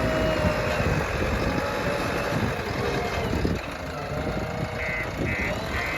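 JCB 3DX backhoe loader's diesel engine running with a steady low rumble. Near the end a run of short high beeps starts, repeating about twice a second.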